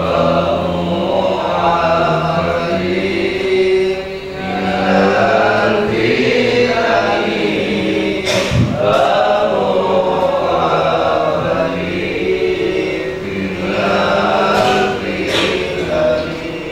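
A man chanting an Arabic prayer into a microphone in long, drawn-out melodic phrases. A single thump about eight and a half seconds in.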